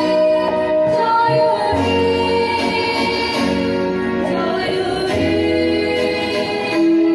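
Song with a singing voice over instrumental accompaniment, the voice holding long steady notes over a sustained low tone.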